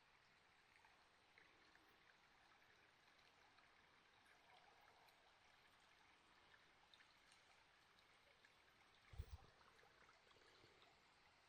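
Faint steady trickle of flowing water with a few tiny ticks, and one short low thump about nine seconds in.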